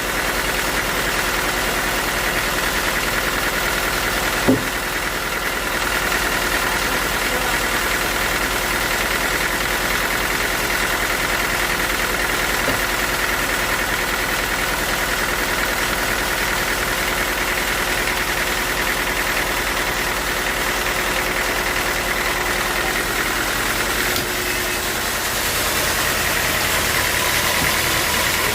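Sawmill machinery running steadily, an engine drone with a high steady whine over it. There is a single knock about four and a half seconds in, and the sound shifts slightly near the end.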